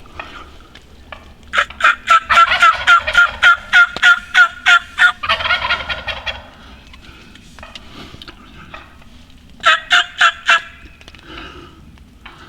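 Turkey yelping: a loud run of about a dozen evenly spaced notes, roughly three a second, then a shorter run of four notes near the end.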